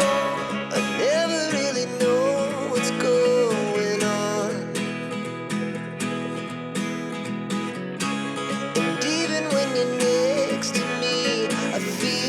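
Background song: a sung melody over strummed guitar with a steady beat.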